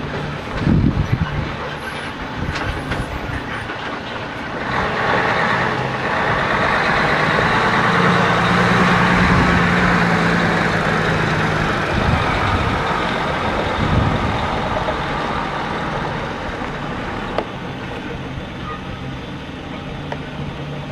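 Mercedes-Benz Actros 4144 8x8 dump truck's V8 diesel engine running as the truck drives past on a dirt haul road. It grows louder from about five seconds in, is loudest in the middle and fades as the truck climbs away up the ramp.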